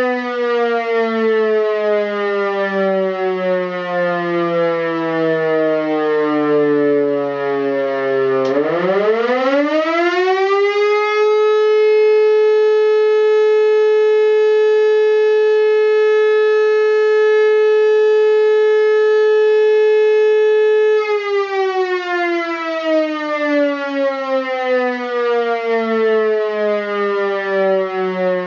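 Helin E57 electric motor siren running through the fire alarm cycle set by a TeleNorma timer. It winds down with falling pitch, is switched back on about eight seconds in and spins up with a quick rise to a steady wail held for about ten seconds, then is cut off and coasts down again: one tone-and-pause step of the 'Feuer' signal.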